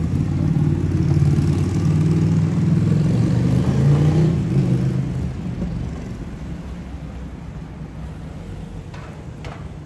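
A motor vehicle's engine running as it passes along the street, loud for the first few seconds and fading away after about five seconds into quieter street noise.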